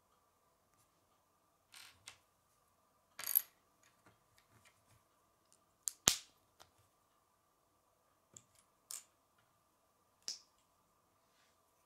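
Plastic Lego bricks and plates clicking and tapping as they are handled and pressed together, a handful of separate clicks with the sharpest about six seconds in. A faint steady hum runs underneath.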